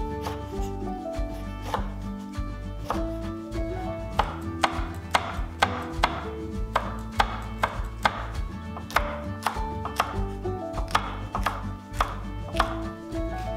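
Kitchen knife chopping on a wooden cutting board, a steady run of sharp taps at about two a second, as lemon is sliced and then green and red chilies are cut into thin rings.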